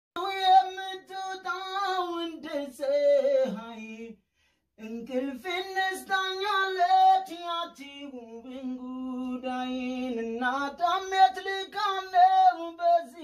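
A lone voice singing unaccompanied in a high register into a studio microphone, holding long notes with a wavering pitch. It breaks off briefly about four seconds in, then the voice sings lower, steadier notes before climbing again near the end.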